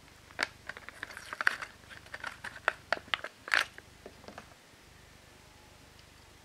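Clear plastic toy packaging and its cardboard backing card crinkling and crackling as a die-cast toy car is pulled free by hand: a quick run of sharp crackles and clicks that stops about four and a half seconds in.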